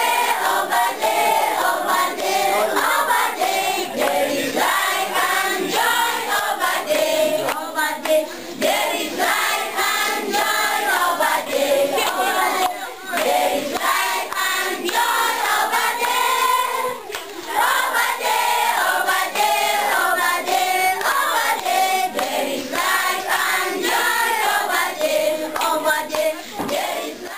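A group of schoolchildren singing a song together, with hand clapping.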